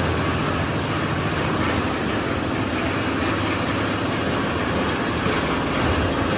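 Concrete mixer with tower hoist running with a steady, loud mechanical drone.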